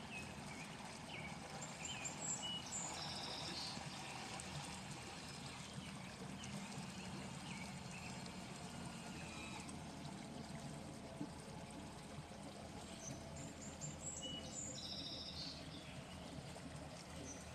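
Water trickling and lapping as a Bayliner 2755 cabin cruiser idles slowly past, its engine a low steady hum underneath. Birds chirp in short bursts about a second in and again about thirteen seconds in.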